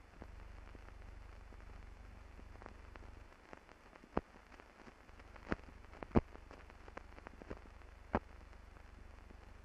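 Faint hiss and low hum of an old film soundtrack, with a handful of sharp clicks and pops scattered through it; the loudest pop comes about six seconds in.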